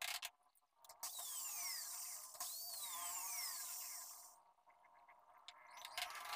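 Small hammer tapping small nails into a wooden cabinet door frame, sharp taps at the start and again near the end. In between, for about three seconds, a hiss with falling whistle-like tones.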